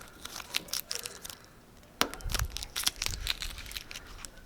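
Crinkling, tearing and crackling of a sheet being handled and peeled, as a star marking's stencil or decal backing comes off. A run of sharp crackles that gets busier about two seconds in, with a dull bump of handling at the same point.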